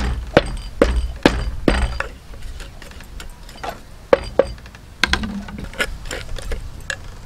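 Wooden pestle pounding in a wooden mortar: four sharp knocks about half a second apart, then a metal spoon scraping and tapping inside the mortar with scattered small clicks.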